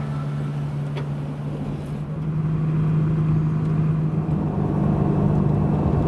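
A pickup truck carrying a camper driving along a highway: a steady engine drone and road rumble that grows louder about two seconds in.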